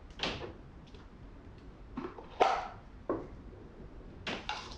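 A handful of short knocks and clicks as a spoon and a baking powder can with its lid are handled over glass bowls. The loudest knock comes about two and a half seconds in.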